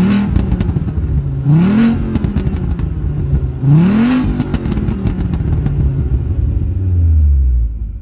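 Engine running rough and loud, revved up sharply about three times roughly two seconds apart, then dropping to a lower, steadier note near the end.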